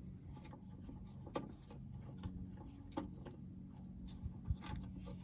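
A few scattered light clicks and knocks of hand tools working on the seat's swivel base bolts, over a faint steady hum.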